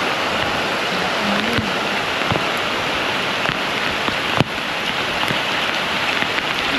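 Steady rain falling, a constant hiss with a few sharp drips ticking through it.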